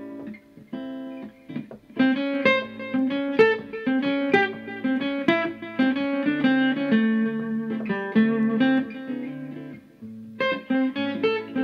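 Acoustic guitar playing a MixoBlues-scale lick, a string of single notes with hammer-ons running down the scale. It starts sparsely, gets busier about two seconds in, and has a brief break near the end before it picks up again.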